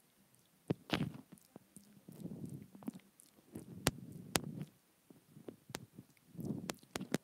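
Close-up nibbling and mouth sounds on a wired earphone's inline microphone: scattered sharp clicks against the plastic mixed with short, soft mouth noises.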